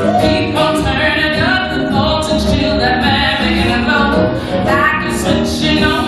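A woman sings a stage-musical song with a chorus joining in, over band accompaniment, loud and continuous.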